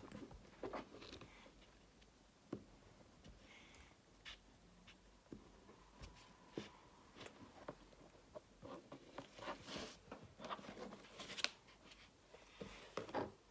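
Faint, scattered scraping and tapping of small plastic moulds and tools in kinetic sand in a plastic tray. It gets busier in the last few seconds.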